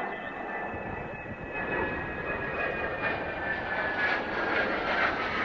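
Mitsubishi F-2 fighter's single F110 turbofan on a gear-down approach, a jet whine with high tones that slide slowly lower over a rushing roar that grows louder as the jet comes closer. The engine is throttled back for a simulated engine-out landing approach.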